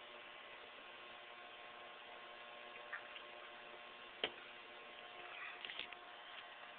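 Emerson countertop microwave oven running off a truck's power inverter: a steady electrical hum holding several fixed tones, with a single sharp click about four seconds in.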